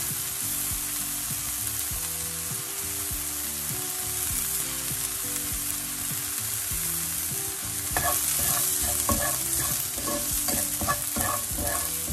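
Onions, green peas and spices sizzling in oil in a nonstick frying pan, stirred with a wooden spatula. From about eight seconds in, the spatula clicks and scrapes against the pan more often.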